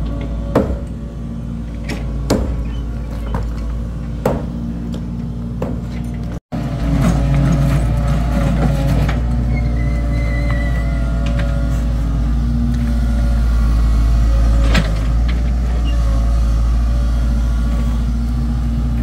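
Excavator's diesel engine running steadily, with sharp metallic knocks about once a second during the first third. After an abrupt cut the engine runs on, with a single clank about two-thirds of the way through.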